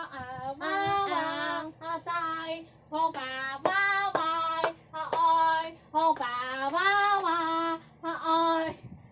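A girl singing in long, sliding notes, clapping her hands about twice a second for a couple of seconds in the middle.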